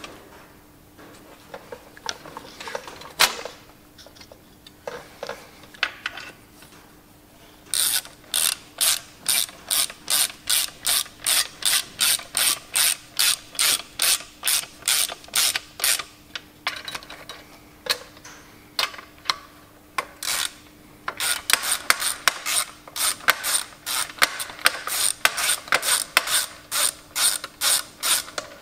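Socket ratchet clicking as it spins bolts on a tractor clutch assembly: a few single clicks, then two long runs of quick, even ratchet strokes, about two to three a second, with a pause between them.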